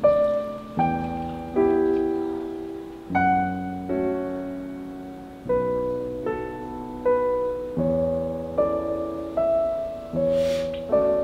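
Background music: slow solo piano, a note or chord struck about once a second and left to ring.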